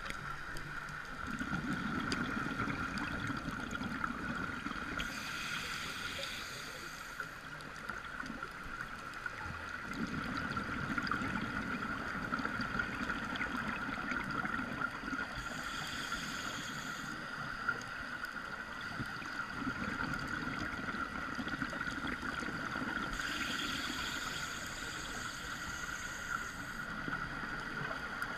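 Scuba regulator breathing heard underwater: three slow cycles of a hissing inhalation followed by long stretches of bubbling, gurgling exhaust, over a steady high hum.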